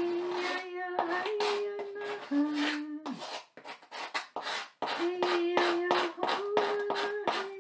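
A woman chanting long held notes of a second or two each at nearly one pitch, several stepping slightly higher partway through, with short breaks between them. Over it, quick scratching strokes of a hand tool carving lines into a blackboard.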